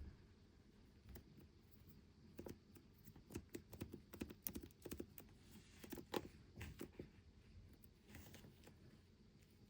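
Faint crinkling and crackling of plastic packaging being handled and opened, a quick run of small clicks from about two seconds in until about seven seconds.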